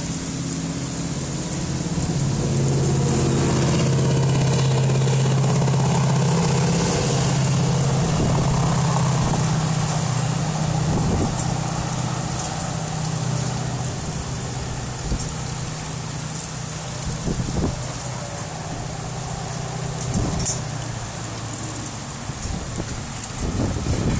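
A motor vehicle's engine running with a steady low hum, loudest a few seconds in and then easing off, over a constant hiss. A few short knocks come near the end.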